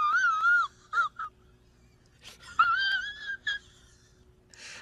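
Cat meowing: a long wavering meow, two short chirping meows about a second in, then another drawn-out meow about two and a half seconds in.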